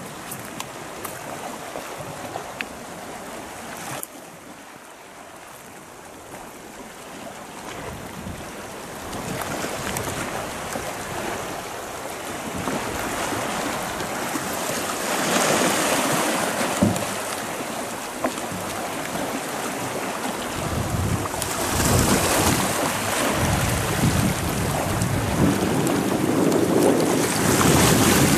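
Small sea waves washing over a stony shore, the wash swelling in repeated surges and splashing in close at the end, with wind buffeting the microphone in the second half.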